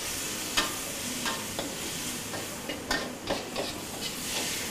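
Crispy pork and holy basil sizzling in a wok on a gas burner while a wok spatula stirs and scrapes through it, with several short clanks of the spatula against the wok.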